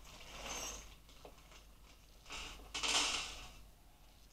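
Hands rummaging through a box of spare computer screws and parts, three brief scraping rustles.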